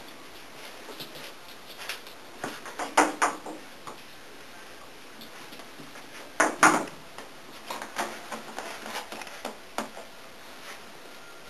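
A dog shifting and scrabbling about in its fabric pet bed on a wooden floor: irregular rustles and knocks, a cluster about three seconds in, the loudest about six and a half seconds in, and smaller ones near the end.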